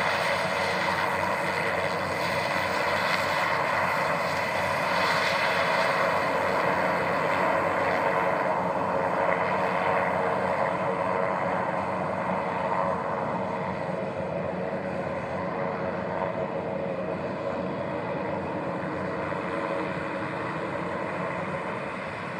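A Beechcraft King Air 200's twin PT6A turboprop engines at taxi power: a steady turbine whine and propeller drone. The sound fades gradually over the second half as the aircraft turns away.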